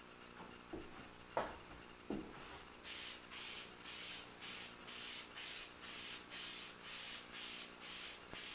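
Aerosol can of spray lacquer hissing in short, even bursts, about two a second, as the coat goes on. Before the spraying starts there are a few light knocks.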